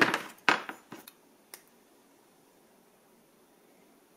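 Small metal hand tools and a circuit board being handled on a desk: four sharp clicks and taps within the first second and a half, then near quiet.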